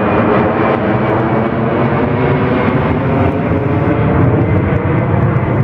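Airbus A320 climbing out just after takeoff, its two turbofan engines at climb power: a loud, steady jet noise with a layer of whining tones through it as the airliner climbs away overhead. The high hiss thins a little after about four seconds as it draws off.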